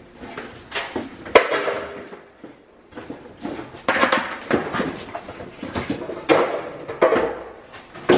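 Household items being handled and set down: a series of sharp knocks and clatters with rustling between them. The loudest knock comes about a second and a half in.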